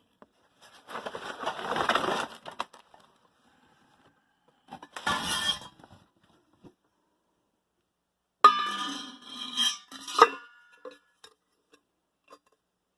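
Hard metal parts being handled: a stretch of scraping, a shorter scrape, then a sharp metallic clink about eight and a half seconds in that rings briefly, followed by a few more clinks.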